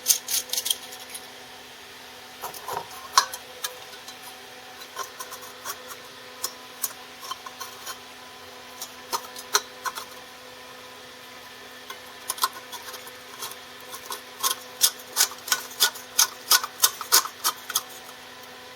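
Sharp clicks and taps of small metal parts being handled and fitted, with a quick run of clicks about two-thirds of the way in, over a faint steady hum.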